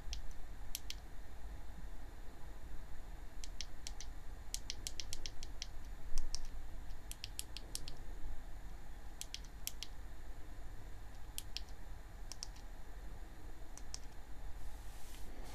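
Small control buttons clicking in quick runs of two to eight short, dry clicks, pressed to step through a video camera's on-screen settings menu, over a faint steady low hum.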